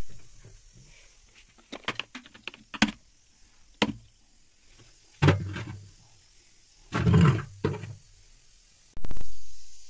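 Handling noise from cleaning a steel kitchen sink: a run of small sharp clicks and taps, then several dull thumps mixed with rubbing, each about a second long.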